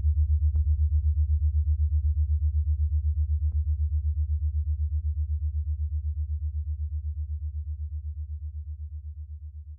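Glashütte Original Senator automatic watch ticking, picked up close and heard as a rapid, even low pulsing of about eight beats a second. The pulsing fades away toward the end.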